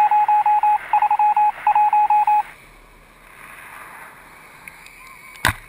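Electronic beeping at a single mid pitch, keyed on and off in rapid short and long pulses like a Morse-code signal, stopping about two and a half seconds in. Then a faint steady hiss, broken by one sharp click near the end.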